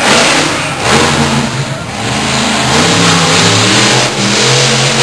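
Monster truck engine revving hard, the throttle lifting briefly about one and two seconds in, then held loud and steady.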